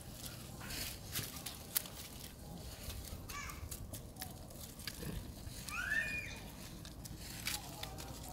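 Dry leaf litter rustling and crackling with scattered small clicks as macaques shift about. Two short, high-pitched animal calls that sweep in pitch come through, one about three seconds in and a louder one about six seconds in.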